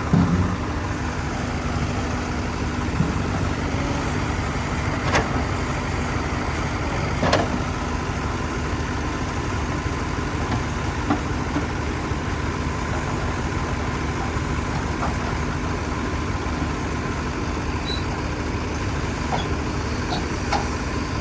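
Diesel engine of heavy machinery idling steadily, with a couple of sharp clicks about five and seven seconds in.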